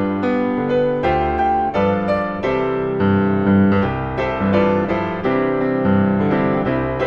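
Background music led by piano, a steady run of notes.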